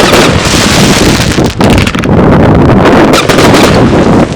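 Strong wind buffeting the microphone: a loud, rough roar that starts abruptly and cuts off just before the end.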